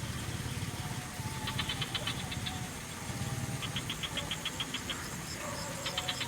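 Frog chorus: a low, rapid croaking that goes on throughout, with trains of quick high-pitched clicking calls about a second and a half in, around three seconds, and again near the end. A thin steady high insect trill runs underneath.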